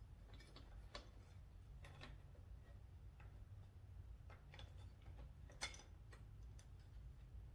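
Faint, irregular light clicks and taps of small metal parts and hand tools being handled while a motorcycle's upper stay is fitted, with one sharper click about five and a half seconds in.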